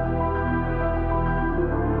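Background music: sustained held notes in a slow, soft chord, with the notes changing about a second and a half in.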